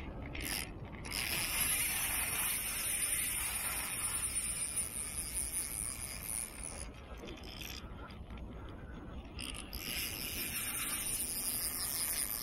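Spinning reel being cranked, its gears whirring as line is wound in, in two spells: from about a second in until about seven seconds, then again for the last three seconds after a short pause.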